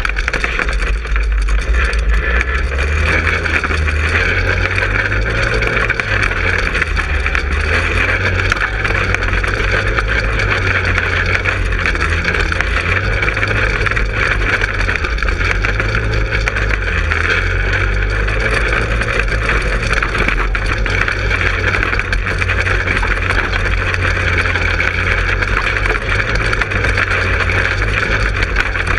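Manco Helix 150 go-kart's engine running steadily as the kart is driven along.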